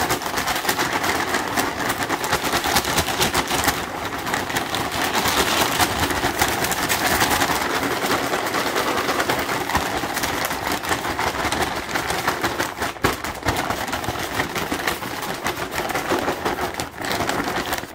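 Caramel-coated popcorn rattling inside a closed bag as the bag is shaken to coat it: a dense, rapid, unbroken rattle.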